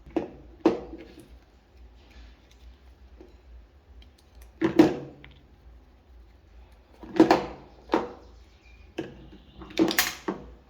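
A series of short knocks and clunks at irregular intervals, about seven in all, with the loudest near the middle and near the end.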